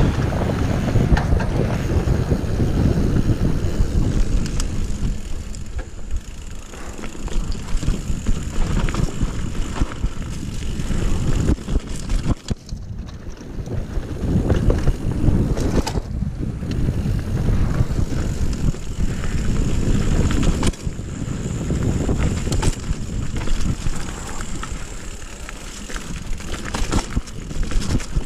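Wind buffeting the microphone of a rider-mounted action camera as a mountain bike rolls fast down a dirt trail, with the tyres crunching over dirt and stones and the bike rattling over bumps. The rush eases off a few times when the bike slows and then builds again.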